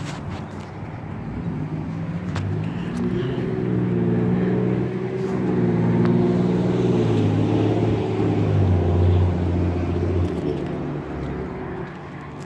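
A motor vehicle's engine growing louder over several seconds, its pitch stepping down a little after about eight seconds, then fading away: a vehicle passing by.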